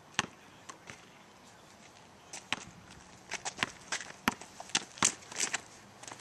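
A basketball being bounced on an asphalt court along with sneakers scuffing, heard as a string of sharp, irregular knocks. The knocks come thickest from about three to five and a half seconds in.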